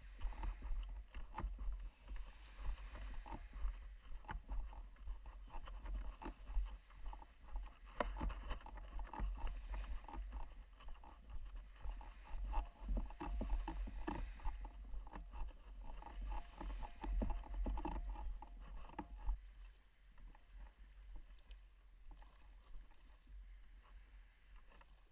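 Paddle strokes swishing and splashing in calm sea water, in repeated pulses, over a steady low rumble with frequent light knocks. The sound grows quieter about three-quarters of the way through.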